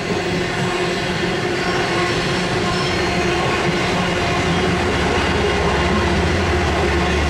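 Indian Pacific stainless-steel passenger carriages rolling past on a curve, a steady noise of steel wheels on rail, with the end of the train going by near the end. A low rumble builds from about halfway.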